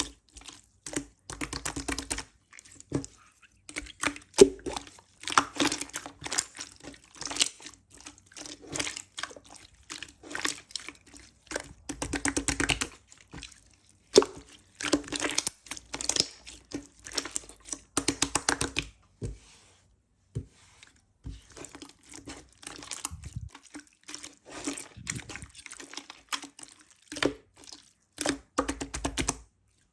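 Thick, sticky slime being squished and pressed by hand, with runs of wet clicking and popping in bursts a second or two long and short pauses between them.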